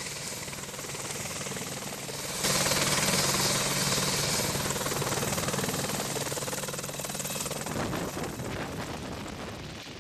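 AH-64 Apache helicopter's rotor and turbine noise, steady throughout; it jumps louder about two and a half seconds in, then slowly fades.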